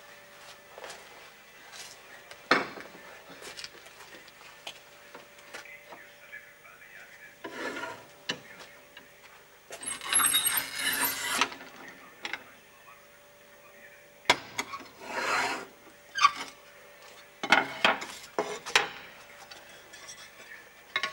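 Intermittent scraping and rasping from masonry work, with scattered sharp knocks; the longest and loudest scrape comes about ten seconds in and lasts about a second and a half.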